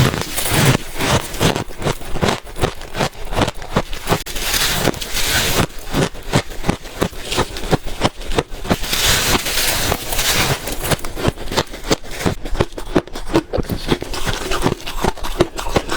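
Freezer ice being bitten and chewed close to the microphone: rapid, crisp crunching and crackling, several crunches a second.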